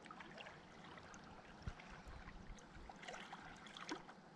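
Faint lapping and trickling of shallow lake water over rocks, with a couple of brief soft clicks.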